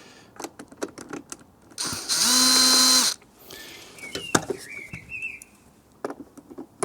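Power screwdriver briefly spinning up and running for about a second, amid clicks and rattles of screws and tools handled on the plastic pressure washer housing. It is backing out screws that are holding fast in the plastic.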